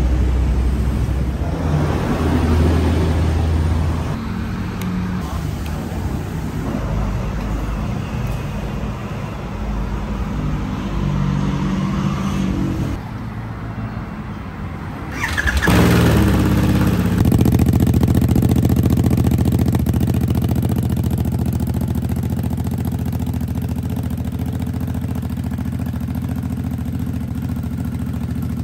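Harley-Davidson Nightster 975's Revolution Max V-twin running through a custom exhaust, its engine speed rising and falling. Thirteen seconds in it drops away, and a couple of seconds later the bike is restarted on the starter button: it catches with a short rev and settles into a steady idle.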